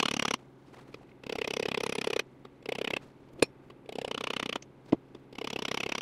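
Rapid light hammering on the chrome steel wheel cover to work out a dent, in short bursts of quick taps separated by pauses, with two single sharp knocks about three and a half and five seconds in.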